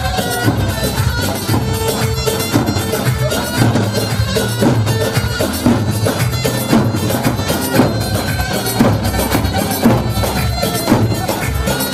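Traditional folk music: a reedy wind-instrument melody over a steady drum beat.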